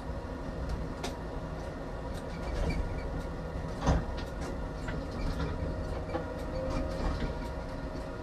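Tram running along the track: a steady rumble with a humming tone, scattered clicks and knocks from the wheels on the rails, and one louder knock about four seconds in.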